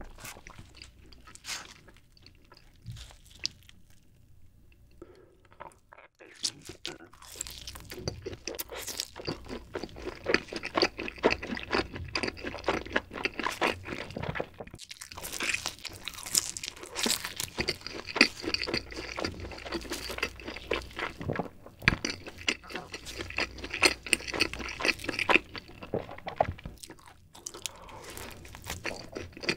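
Close-miked chewing and biting of cheese pizza. It is sparse for the first few seconds, then becomes a dense, continuous run of chewing from about six seconds in, with a fresh bite into the slice near the end.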